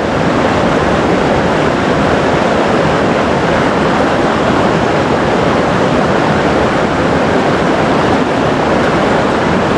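Steady rush of river water running over stones in a shallow riffle.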